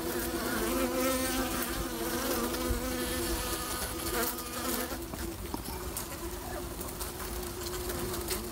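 Honey bees buzzing over the top bars of an open hive: a steady hum of several overlapping wingbeat tones from the crowded colony, with single bees droning in and out above it.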